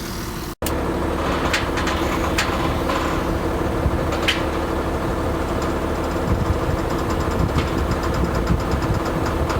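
International tractor's diesel engine running steadily, with a few sharp clicks over it, as it gets ready to work a field cultivator.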